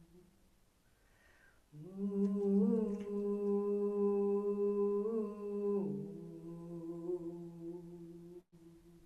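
A voice humming long, held notes: a soft low note, then a louder note from about two seconds in, held for about four seconds, which slides down in pitch and goes on more softly.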